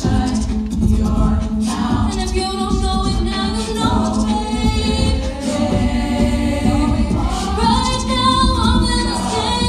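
High-school a cappella group singing: a lead voice over a full backing of layered vocal harmonies, with no instruments.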